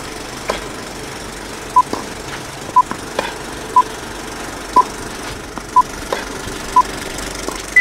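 Film-leader countdown sound effect: six short beeps, one a second, then a higher-pitched beep near the end, over a steady hiss with a few faint clicks like old film crackle.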